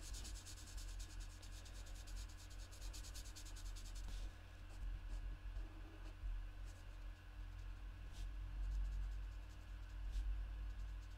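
Alcohol marker nib scratching across cardstock in quick short strokes, colouring and blending a small stamped image. The strokes come thick and fast for about the first four seconds, then turn lighter and sparser. A low steady hum runs underneath.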